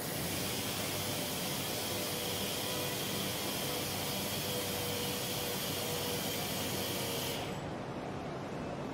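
Handheld orbital polisher running as it polishes a car's painted roof: a steady hiss with a faint whine, cutting off suddenly about seven seconds in.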